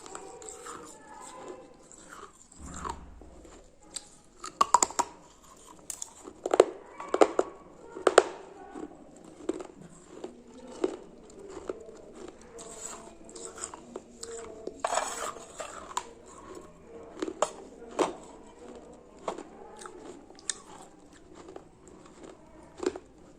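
A person biting and chewing something very hard and crunchy close to the microphone: irregular sharp crunches, loudest about 5 to 8 seconds in and again around 15 seconds, with softer chewing between them.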